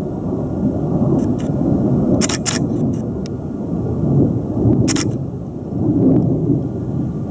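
Low rumble that swells and fades, with a camera shutter clicking: a quick double click about two seconds in and a single click near five seconds.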